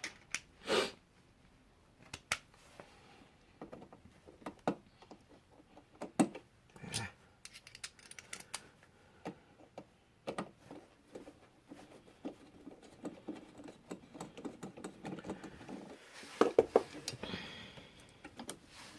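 Scattered small clicks, taps and light rattles of hand tools and small parts being handled while taking out a wall outlet, with a few sharper knocks about a second in, around the middle and near the end.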